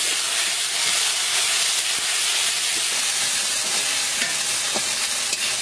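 Hot oil sizzling steadily in a metal wok as ingredients are fried and stirred with a metal spatula, with a few faint ticks from the spatula.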